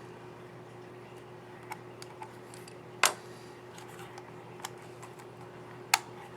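Small plastic clicks from a laptop keycap and its scissor mechanism being fitted onto the keyboard: a few light ticks and two sharp, louder clicks about three seconds apart.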